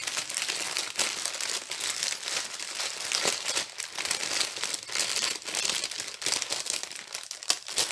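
Small plastic packets of round diamond-painting drills crinkling as they are handled, a dense run of small crackles and rustles.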